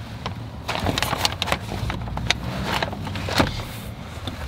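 Paper food bags rustling and crinkling, with scattered clicks and bumps from people moving about inside a car, over a low steady hum.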